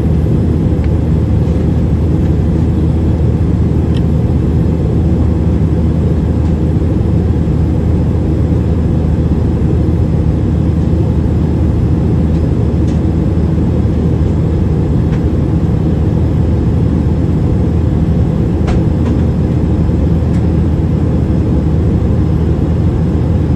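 Steady low drone of an aircraft cabin in flight: engine and airflow noise heard from inside the plane.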